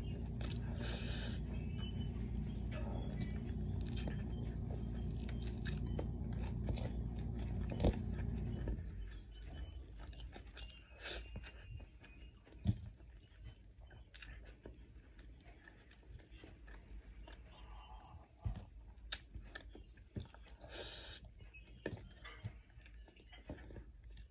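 Close-up chewing and mouth sounds of a person eating camel-meat biryani by hand, with scattered short clicks and wet smacks. A steady low hum runs under the first nine seconds or so and then cuts off suddenly.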